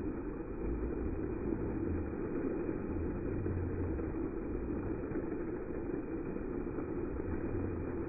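Dancing fountain's water jets splashing steadily onto the wet paving, an even rush of water with a low rumble underneath.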